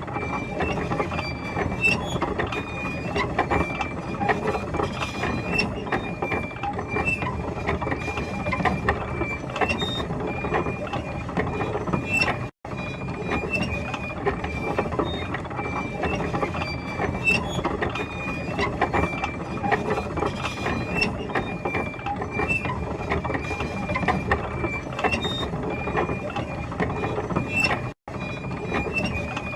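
Tank machinery running with a dense, steady metallic clatter and ratcheting, and frequent short high squeaks. The sound drops out for an instant twice, about twelve seconds in and near the end.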